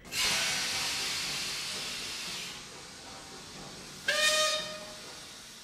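Steam hissing, loud at first and slowly dying away; about four seconds in, a steam whistle sounds once, a single steady note for about a second, then fades.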